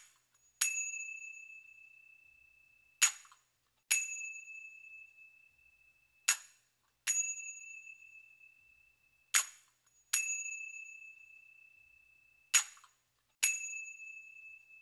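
A small ringing metal percussion instrument struck in pairs: a short damped stroke, then an open stroke that rings on one clear high note for about two seconds. The pair comes five times, about every three seconds.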